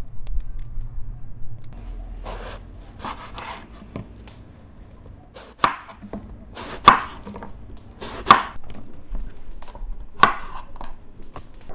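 Kitchen knife slicing through a whole eggplant on a wooden chopping board. There is a string of separate cuts from about two seconds in, each ending in a sharp knock of the blade on the board. The last few cuts are the loudest.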